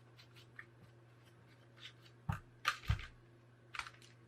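Tools and small parts being handled on a workbench: scattered light clicks, then two sharper knocks about half a second apart just past the middle, and one more click near the end.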